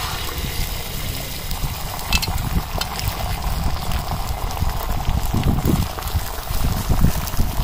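Beaten egg mixture poured onto a hot iron griddle over a wood fire, sizzling steadily as it spreads and sets. There are a few sharp crackles about two to three seconds in and a low rumble underneath.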